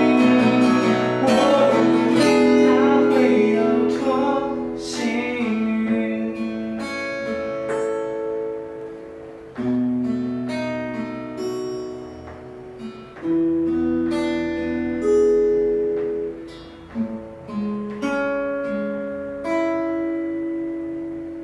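Acoustic guitar with a capo played fingerstyle: a busy passage of picked notes and chords, then sparser single notes and chords left to ring out and fade, slowing and growing quieter toward the end of the piece.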